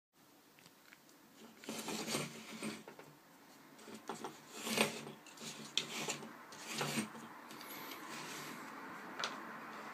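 Irregular rubbing and scraping handling noises with a few sharp clicks, settling into a steady faint hiss from about eight seconds in.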